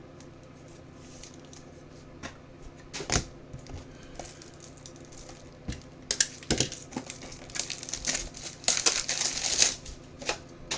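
Plastic crinkling and rustling as trading cards are handled, with a few sharp clicks; the crinkling turns dense about six seconds in and lasts about four seconds.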